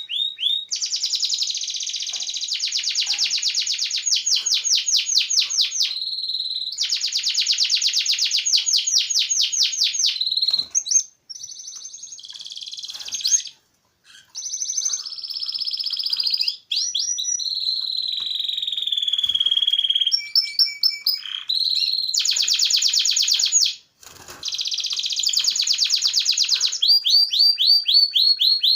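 Lovebirds chirping and chattering in fast, shrill runs of many notes a second, broken by a few brief silences.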